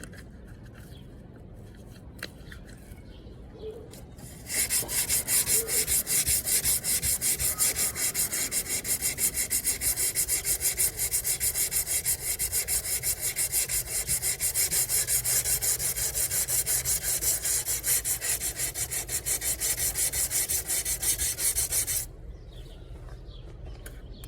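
Sandpaper rubbed back and forth over a Mitsubishi Eclipse's body panel, a loud rasp in quick even strokes about four a second. It starts about four seconds in and stops suddenly near the end.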